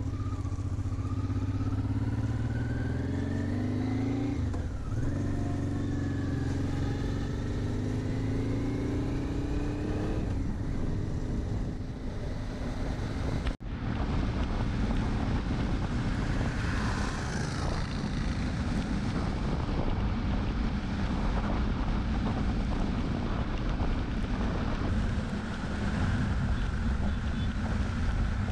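Motorcycle engine heard from the bike itself, pulling up through the gears: its pitch climbs, drops at a gear change about five seconds in, and climbs again. After an abrupt break about halfway, steady wind and engine noise at cruising speed.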